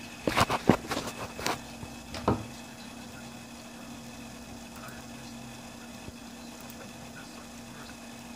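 Several sharp knocks and clicks in the first two and a half seconds, then a steady hum with a faint high whine.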